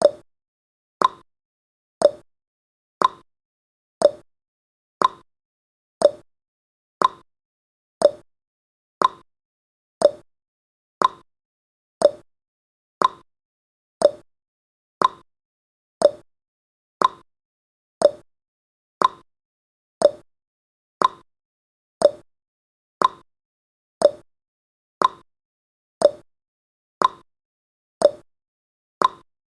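Clock-style ticking sound effect of a countdown timer: one short tick every second, alternating between a lower and a higher pitch like a tick-tock.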